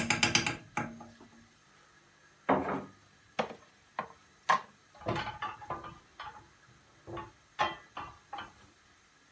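Spoon clacking against a cooking pot as onions are stirred, a quick flurry at the start, then scattered single knocks and clatters of kitchen utensils.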